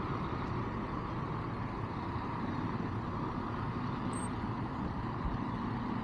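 Steady low rumble of vehicle noise, with a faint steady hum joining about two and a half seconds in.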